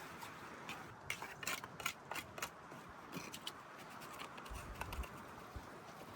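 Faint, irregular scraping and clicking of a hand tool working wet concrete into a form around a conduit, many short clicks in quick succession, thinning out in the second half.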